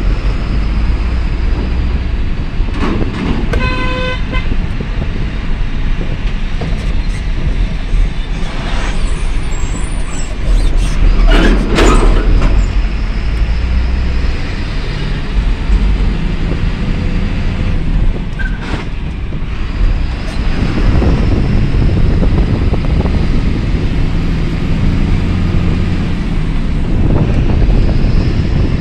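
A truck engine runs with road noise as the vehicle drives slowly on a rough road. A horn gives a short toot about four seconds in, and there is a louder burst of noise around twelve seconds in.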